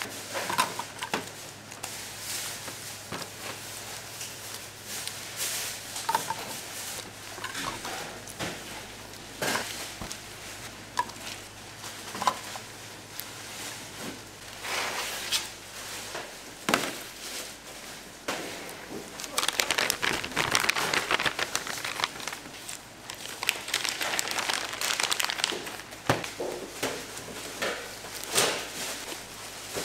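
Plastic packaging crinkling and rustling as it is handled, with many scattered clicks and knocks, busiest a little past the middle. A faint low hum stops about halfway through.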